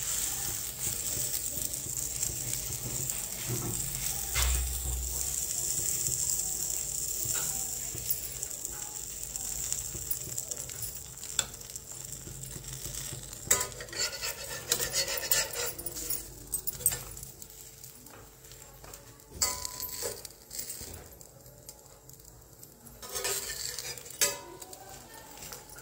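Butter-spread sandwich sizzling in a non-stick frying pan as a plastic spatula presses it down. The sizzle fades about halfway through, leaving scattered clicks and scrapes of the spatula against the pan.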